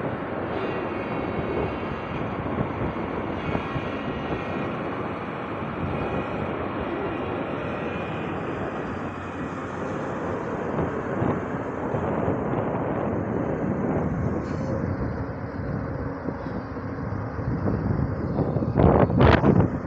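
Excavator's diesel engine and hydraulics running steadily under work, with a few loud gusts of wind on the microphone near the end.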